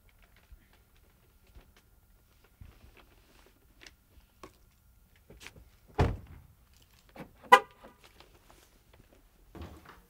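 A car being shut with a heavy thump about six seconds in, then a second and a half later a single short, sharp car horn beep, the loudest sound. Faint scattered clicks and steps come before and after.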